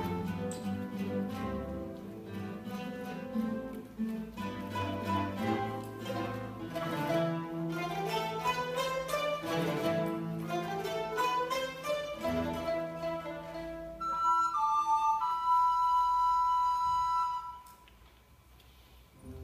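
A mandolin orchestra of mandolins, guitars and double bass playing a classical concerto passage in quick plucked notes over a bass line. About three-quarters of the way through, the plucking stops and flutes hold a few long notes. A brief hush follows before the music resumes.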